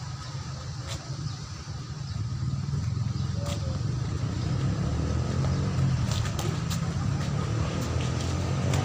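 Low rumble of road traffic, growing louder after about two seconds, with a few sharp slaps, such as boxing gloves landing, scattered through it.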